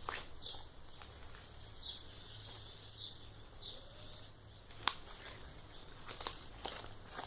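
Sticky homemade slime of clear multipurpose glue being stirred and worked, giving faint scattered wet clicks and small squelches, with one sharper click about five seconds in.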